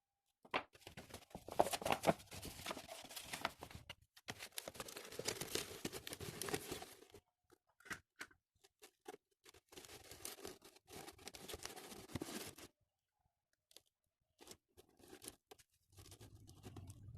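Close handling noises: scraping and rustling with many small clicks in stretches of a few seconds, then a few sparse clicks, and a low hum starting near the end.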